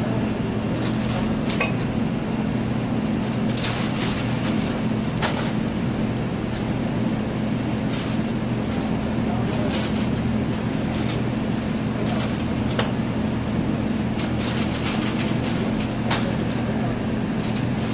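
A steady low machine hum, with scattered short clinks and scrapes of a metal scoop against a large steel rice tray as rice is scooped into paper bags.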